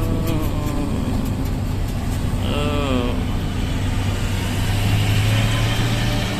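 Mercedes-Benz intercity bus running steadily on the road, its engine giving a constant low drone with road noise.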